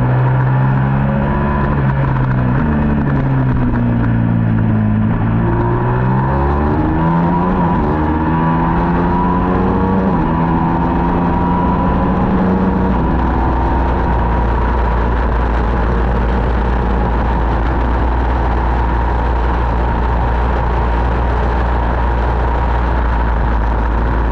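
Middleweight superbike engine heard onboard, revs rising and falling through gear changes, then settling after about thirteen seconds into a steady low rumble.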